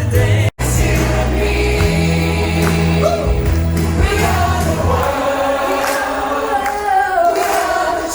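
Music with choir-like singing over a heavy bass line. The sound cuts out for an instant about half a second in, and the bass drops away about five seconds in, leaving the voices.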